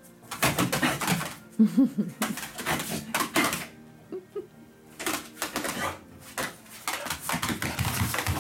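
A dog's claws scrabbling and clattering in rapid clicks on a laminate floor and against a sofa as it lunges after a pet rat, in bouts with a short lull about four seconds in.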